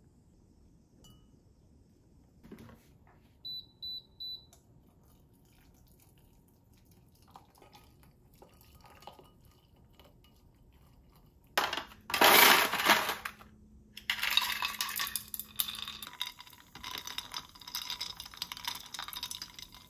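Three short beeps about four seconds in. Later a loud rushing burst, then a run of glassy clinks and scrapes as stirrers and spoons knock against double-walled drinking glasses while the drinks are mixed.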